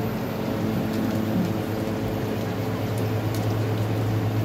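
Steady low hum of a running electrical appliance, growing stronger about halfway through, with a few faint ticks and crinkles as a plastic packet is handled near the end.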